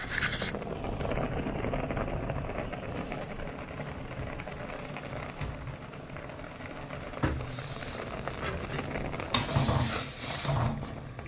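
Steady hiss of a pot of beshbarmak dough sheets boiling on the stove, with a sharp knock about seven seconds in and some clatter near the end.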